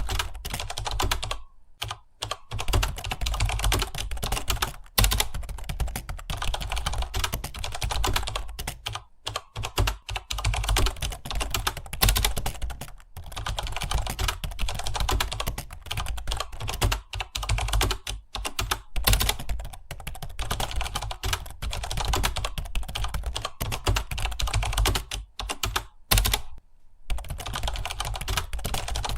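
Fast continuous typing on a computer keyboard, keys clicking rapidly with a few short pauses.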